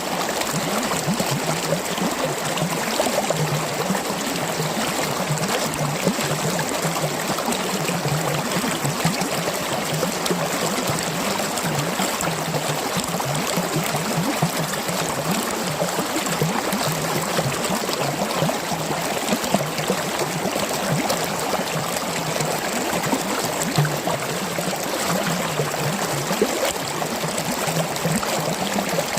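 Mountain stream flowing and gurgling steadily.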